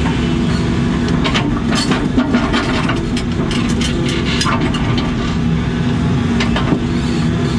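Case CX80 excavator's diesel engine running steadily under work, with repeated sharp knocks and clunks scattered throughout as the machine handles rock.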